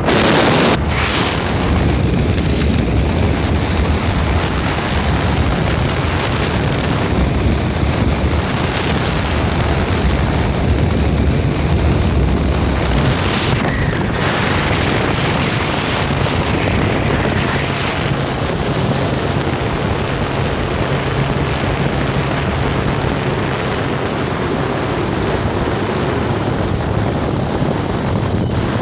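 Motorboat under way: a steady low engine hum under loud wind rushing over the microphone.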